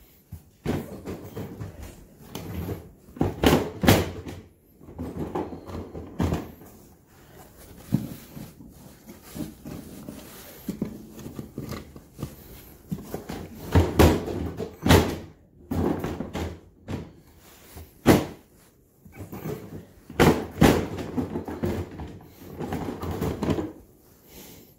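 Ryobi LINK hard-plastic tool boxes knocking, clicking and thunking as they are handled, the top box's lid being opened and shut and its latches worked, in irregular clusters with the loudest knocks in the second half. The lid is one the owner suspects is faulty.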